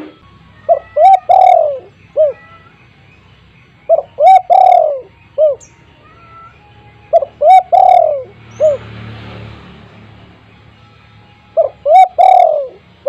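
Spotted dove cooing: four repeated phrases about three and a half seconds apart, each a few short coos followed by a longer drawn-out note. A soft hiss rises and fades between the third and fourth phrases.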